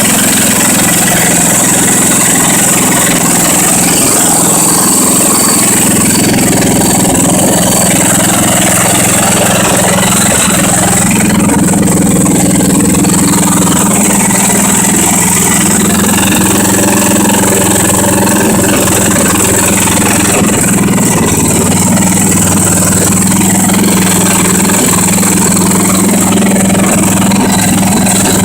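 10 hp Tecumseh engine of a Sears Suburban garden tractor running steadily on its newly replaced carburetor, its speed shifting slightly about three-quarters of the way through.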